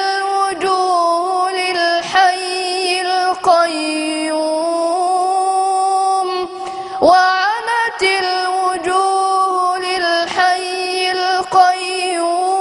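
Qur'an recitation (tilawa) by a single high voice, sung in long held melodic notes with ornamented turns. It breaks off briefly for breath a few times.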